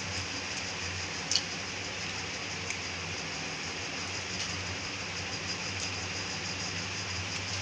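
Spiced water boiling in a steel kadai on a gas stove, a steady hiss, with a few sharp taps as eggs are cracked on the pan's rim, the loudest about a second in.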